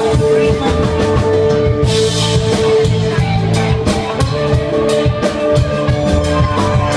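Live rock band playing an instrumental passage on drum kit and guitar, with a steady beat and a held note over it.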